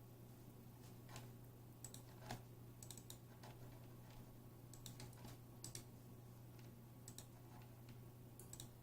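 Faint computer keyboard keys pressed one at a time at irregular intervals, some in quick pairs, over a steady low hum.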